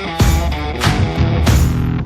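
Background rock music with distorted guitar and a steady beat.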